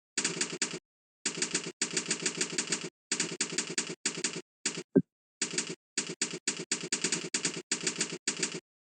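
Rapid typing key clicks in bursts of about a dozen clicks a second, stopping and starting with short dead-silent gaps. About five seconds in, one short, sharp sound with a quickly falling pitch is the loudest moment.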